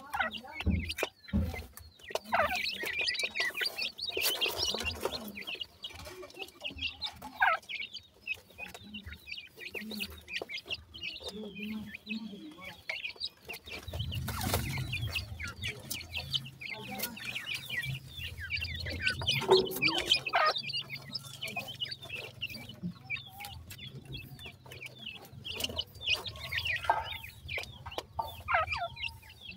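A brood of francolin chicks calling constantly with short, high chirps and peeps while pecking and scratching at loose soil and feed, with many small ticks and clicks.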